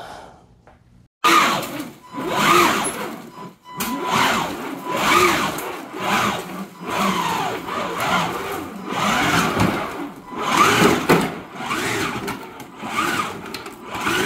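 The Power Wheels Jeep's four 887 brushed electric motors and their gearboxes whining as it drives. The sound starts suddenly about a second in, then surges again and again, rising and falling in pitch roughly once a second.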